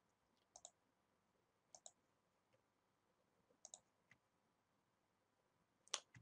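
Faint computer mouse button clicks: four quick double clicks (press and release), spaced unevenly, with near silence between them.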